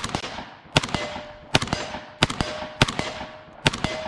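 AK-47 rifle in 7.62x39 fired semi-automatically, six shots at a steady pace a little under a second apart, each followed by a brief ringing tone. The rifle is being tested with a Wolf extra-power recoil spring.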